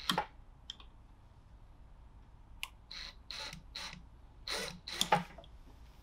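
A screw being worked on a steel safe door, spinning in its hole instead of backing out: a string of short metallic clicks and scrapes, most of them in the second half.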